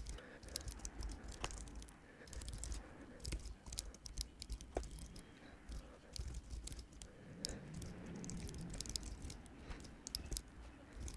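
Computer keyboard typing, sped up: a rapid, fairly faint run of key clicks.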